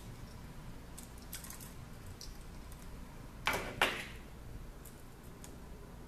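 Light clicks and taps from handling a 3D-printed plastic model and a pair of pliers on a table, with two sharper clatters close together about three and a half seconds in.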